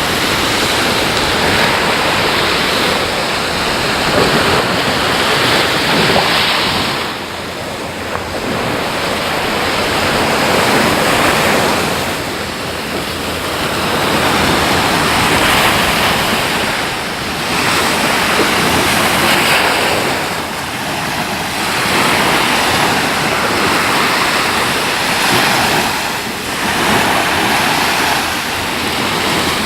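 Sea surf breaking on a beach, the rush of the waves swelling and easing every few seconds, with some wind on the microphone.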